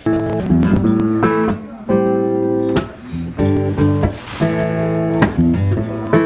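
Two acoustic guitars playing strummed chords in a steady rhythm, the chords changing about once a second, with short dips between phrases.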